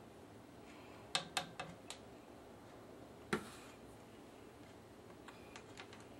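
Light kitchen clicks as a metal measuring spoon taps against a small stainless steel saucepan and a glass bottle: four quick clicks a little after one second, one sharper knock a little past three seconds, then a few faint ticks near the end.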